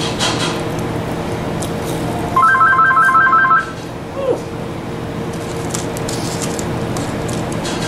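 Telephone ringing: one short burst of a rapid electronic warble alternating between two pitches, the loudest thing here, over steady background music. A brief falling squeak follows just after it.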